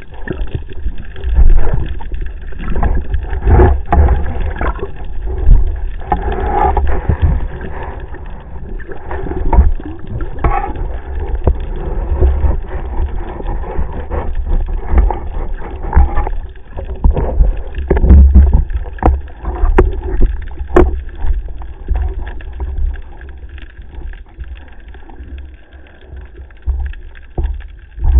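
Water sloshing and rushing against a camera in a waterproof housing during a freedive: a low, uneven rumble that swells and fades, with scattered knocks.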